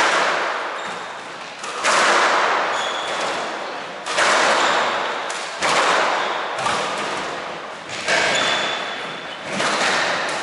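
Squash rally: the ball struck by racket and hitting the court walls about every couple of seconds, each sudden hit followed by a long fading echo in the court.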